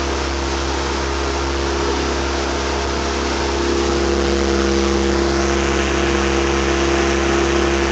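Motorboat engine running steadily, with water and wind noise; it grows a little louder about four to five seconds in.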